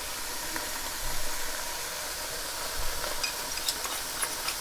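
Vegetables and sauce sizzling in oil in a pan, a steady hiss. A few faint clicks come near the end.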